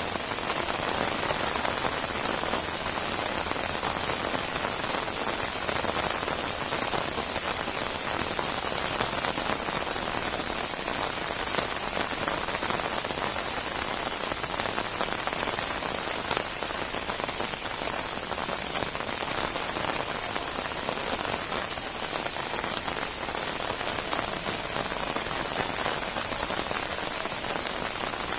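Steady heavy rain falling on a surface, a dense even hiss made up of countless fine drop patters.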